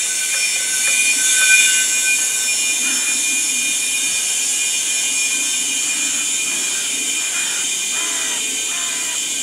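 Steady hiss of compressed air flowing through a hose from an air compressor into a locomotive's air tank, a converted welding gas bottle, as the tank is refilled.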